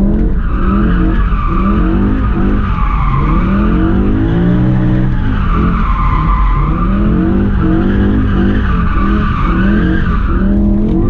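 BMW M5 E60's V10 engine revving up and falling back several times as the tyres squeal through a drift, the rear breaking traction. Heard from inside the cabin.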